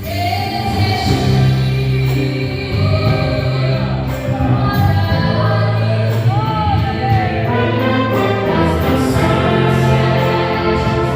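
Live gospel worship band playing, with sustained bass notes under a sung or played melody line.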